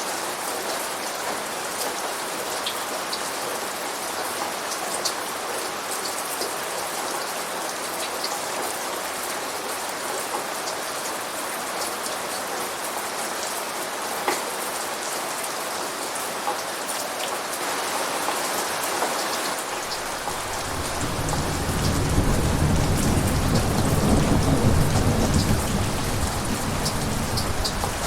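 Steady heavy rain falling, with scattered drops ticking on a surface. About two-thirds of the way in a low thunder rumble builds, swells for several seconds and slowly fades.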